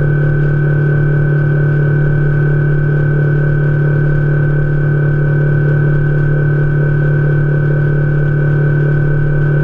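A fishing boat's outboard motor running steadily at cruising speed: an even drone holding one pitch throughout.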